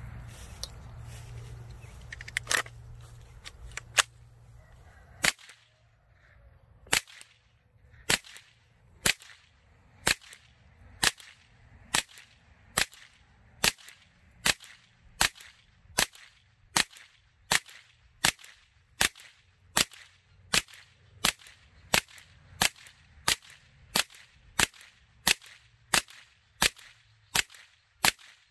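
Suppressed CZ Scorpion carbine firing about thirty single shots through a homemade Form 1 suppressor. The shots come at first about a second apart, then quicken to about one and a half a second.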